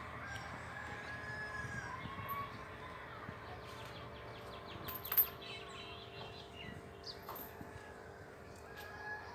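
Faint bird calls in the background, with a single sharp click about five seconds in.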